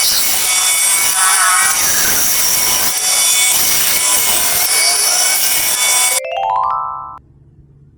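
A woodworking tool working wood, a loud, harsh, steady noise. It cuts off about six seconds in and gives way to a short, quickly rising run of chime-like notes.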